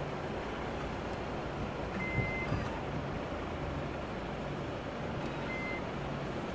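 Car-park pay machine beeping twice, a half-second high beep about two seconds in and a shorter one near the end, as a ticket is fed in and its buttons are pressed. Under it runs the steady low hum of the car's engine idling.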